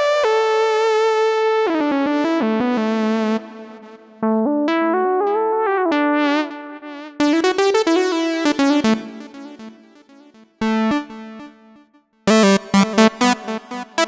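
Yamaha Montage M8x synthesizer played on its keyboard: held notes and chords with short phrases between them, falling almost silent about ten seconds in, then a bright burst of notes near the end.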